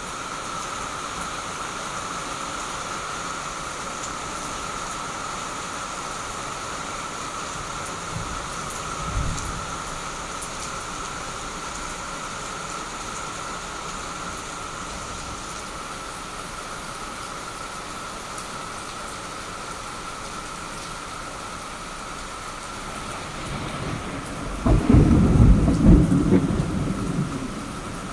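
Heavy rain falling in a steady hiss. A brief low rumble of thunder comes about nine seconds in, and a louder rumble of thunder lasting about three seconds comes near the end.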